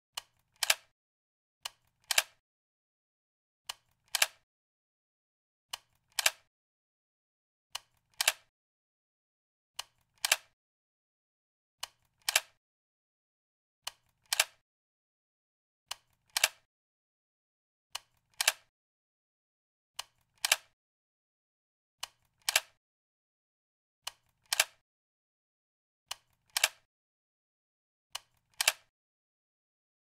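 Gun magazine being loaded: a light click followed about half a second later by a louder, sharp click, the pair repeating every two seconds.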